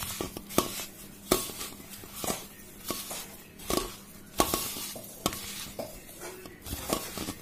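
Hands kneading mashed potato and semolina in a stainless-steel bowl, with sharp clinks against the steel at irregular spacing, about once a second. A faint steady hum runs underneath.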